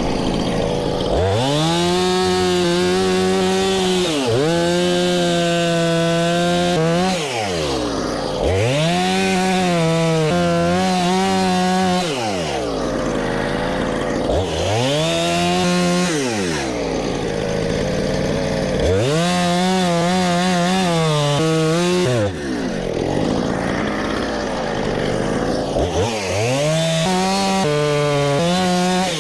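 Husqvarna chainsaw with a 20-inch bar cutting into a black oak log. It is revved up to full speed and held for two to three seconds, then drops back toward idle, about six times over.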